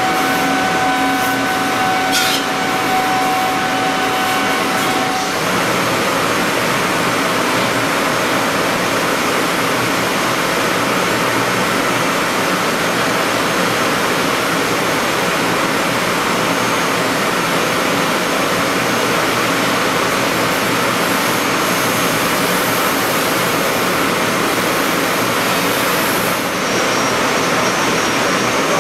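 CNC router spindle running with a small cutter milling Ren foam on a C.R. Onsrud F98HM25 5-axis hybrid mill: a steady whooshing hiss. A steady hum under it drops away about five seconds in, and a faint high whine comes in near the end.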